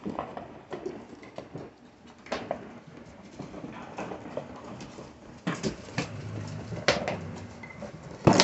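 A group of puppies scuffling and chewing bully sticks: scattered clicks, taps and patters of paws and sticks on the floor, with a louder knock near the end.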